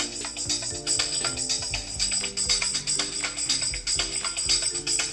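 An iPhone 7 playing a music track with a steady percussive beat through its built-in stereo speakers, the bottom-right speaker and the earpiece speaker.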